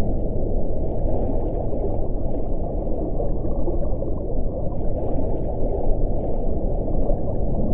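Underwater ocean ambience: a steady, dense, low wash of water noise with faint crackles above it. No clear call stands out in it.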